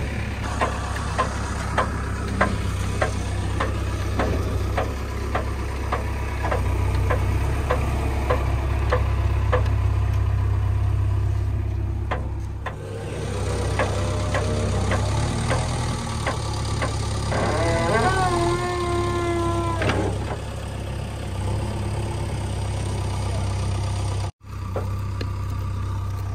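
JCB 3DX backhoe loader's diesel engine idling steadily, with a run of regular clicks through the first half. About two-thirds through, a pitched whine bends up and down for a few seconds; the sound drops out for a moment near the end.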